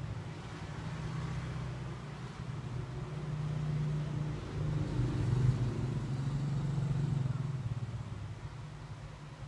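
Low engine hum of a passing motor vehicle, swelling through the middle and fading near the end.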